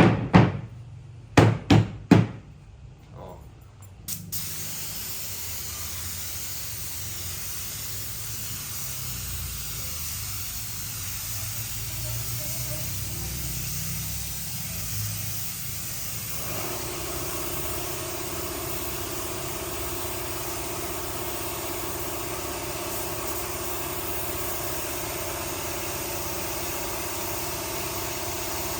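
A few loud knocks, then a workshop machine starts about four seconds in and runs steadily with a hiss. About twelve seconds later it picks up a steady hum.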